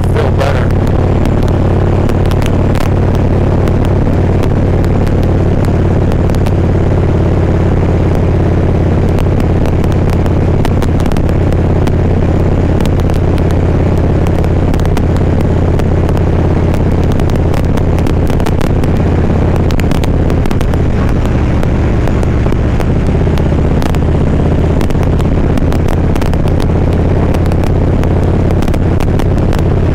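Harley-Davidson Ultra Classic Limited's V-twin engine running steadily on the road, with wind rushing over the microphone and scattered crackles of wind buffeting. The engine note changes pitch about twenty seconds in.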